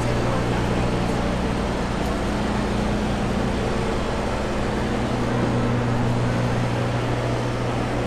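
A steady, low mechanical hum from an engine or machine running at constant speed, with no change in pitch or level.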